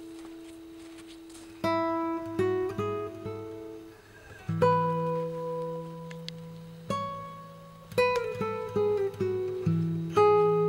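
Background music: slow, plucked acoustic guitar, single notes and chords picked a few at a time and left to ring out.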